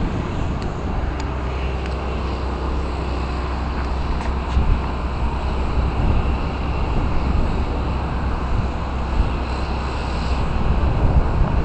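Steady wind rumbling on the microphone, with a few faint clicks.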